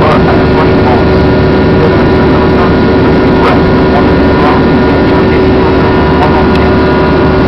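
Steady engine and airflow noise inside an aircraft cabin during the climb after take-off, loud and unchanging, with a constant hum.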